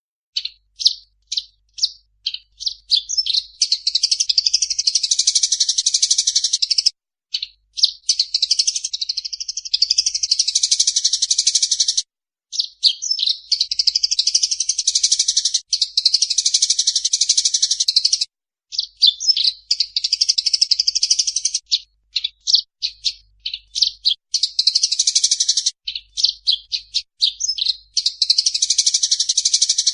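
Eurasian tree sparrows chattering in fast, excited runs of chirps, the calls of sparrows fighting. The calls come in dense bouts of several seconds, each opening with separate chirps and then running together, with short pauses between bouts.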